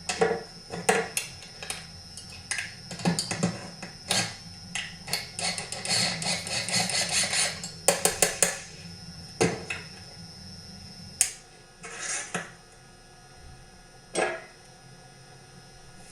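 Metal hand tools knocking and clinking on a McCulloch chainsaw's flywheel end as the flywheel is being taken off: scattered sharp knocks, with a quick run of rapid clicks about five to eight seconds in.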